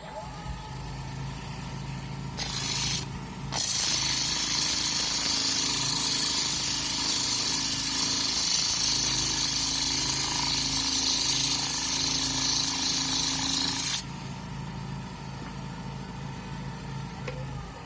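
Wood lathe spinning up, running with a steady hum, and spinning down near the end. Over most of it a loud, even hiss runs for about ten seconds with a brief burst just before, then stops suddenly while the lathe keeps turning.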